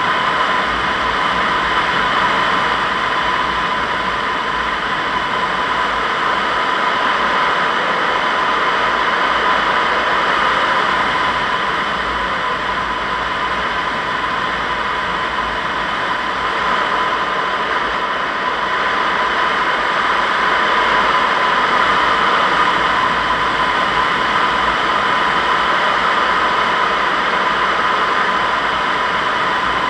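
Steady rush of airflow over a Zugvogel 3a glider in flight, buffeting the camera, with a steady high tone running through it.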